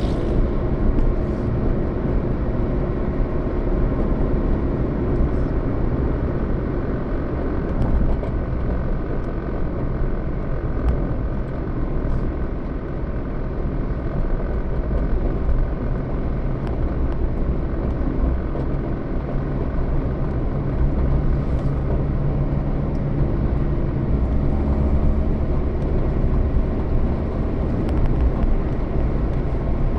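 Road vehicle on the move: steady engine and road noise.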